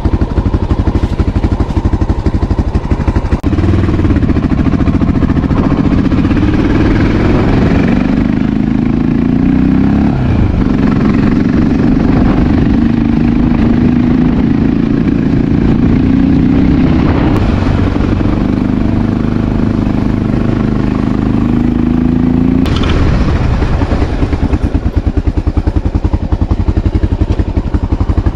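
Honda XR650L single-cylinder four-stroke engine idling with its even, thudding beat. About three seconds in the revs rise and it runs under load, the pitch rising and falling. A few seconds before the end it drops back to idle.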